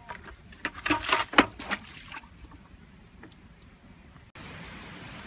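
Irregular scuffs and scrapes of someone climbing a dry, crumbly dirt bank, loudest a second or two in. About four seconds in, a steady hiss cuts in suddenly.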